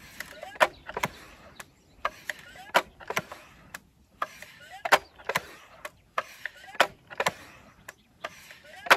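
Aspen/Seneca .22 PCP air rifle's built-in hand pump being worked, stroke after stroke. Each stroke gives a pair of sharp mechanical clicks, about one stroke every two seconds, with a rasp of moving air between, charging air into the rifle before a shot.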